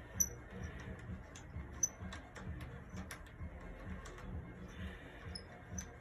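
Faint handling noise: light taps and small clicks, with a few short, high, sharp clinks.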